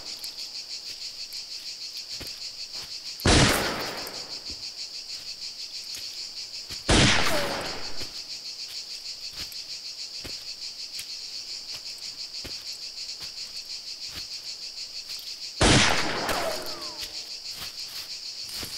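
Three gunshots, about 3 s, 7 s and 16 s in, each echoing away over about a second, over a steady chirring of crickets.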